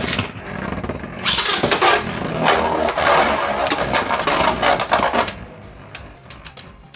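Beyblade spinning tops clashing and grinding against each other in a plastic stadium, a dense rattling clatter full of sharp hits that stops abruptly a little past five seconds in. A few scattered clicks follow.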